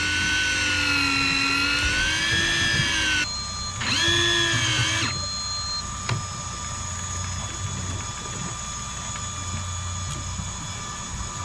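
Electric deep-drop fishing reel motor whining as it winds line up with a fish on, its pitch wavering under the load. The whine stops about three seconds in, runs again for about a second, then gives way to a quieter steady hum.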